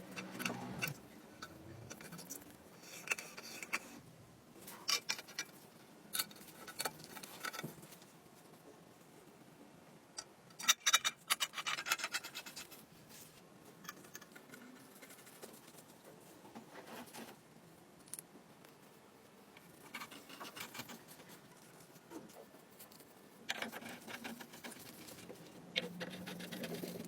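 Hand work on kerosene stove parts: intermittent scraping, scratching and clicking in short clusters with quiet gaps between, the loudest run of rapid clicks about eleven to thirteen seconds in.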